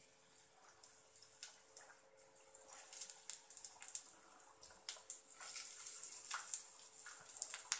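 Chopped onions sizzling and crackling in hot oil in a kadai as handfuls are dropped in, the sizzle growing louder as more onion goes in.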